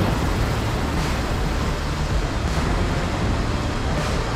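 Ocean surf washing and breaking against jetty rocks, steady, with wind rumbling on the microphone.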